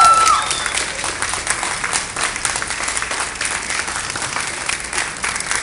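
Crowd applauding with dense, steady clapping, as cheers die away in the first half-second.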